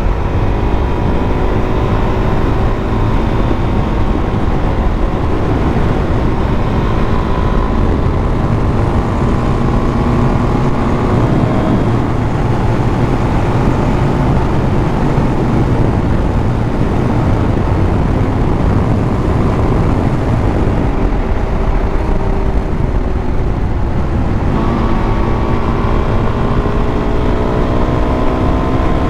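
Dual-sport motorcycle engine running at road speed over a steady wind rush. The engine note eases off about three quarters of the way through, then climbs again as the bike accelerates near the end.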